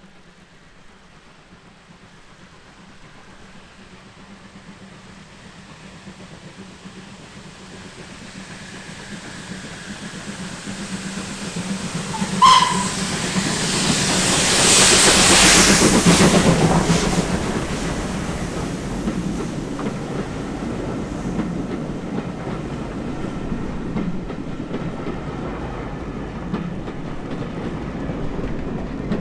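A steam-hauled train approaching, growing louder over about fifteen seconds, with a brief whistle toot just before it passes at its loudest. The carriages then keep running by on the rails.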